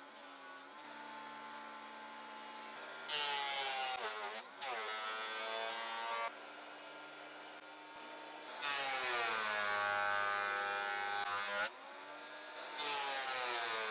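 Makita 2012NB portable thickness planer running, its motor humming steadily, with three louder stretches as boards are fed through and cut to thickness; the motor's pitch sags under each cut and recovers as the board clears.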